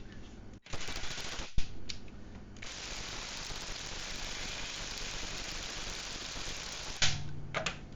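Ryobi cordless impact wrench hammering on a locking lug nut through the lock key: a short run, then a longer steady run of about four seconds that stops suddenly. The wrench is struggling to break the nut loose, which the owner puts down to the little Ryobi not having enough power.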